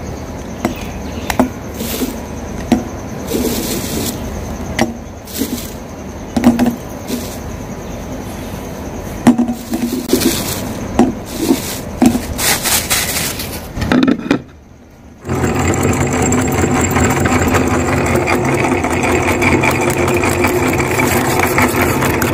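Eggs and a plastic bag being handled: crinkling plastic with scattered knocks and clicks as eggs are set into a glass bowl. About two-thirds of the way through, after a short pause, an electric meat grinder with a belt pulley starts running steadily.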